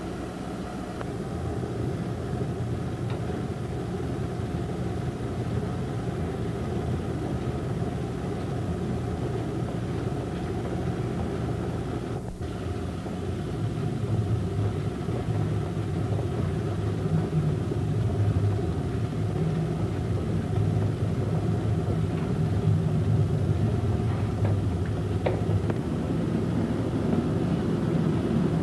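Low, steady droning rumble with several held low tones, growing a little louder about halfway through.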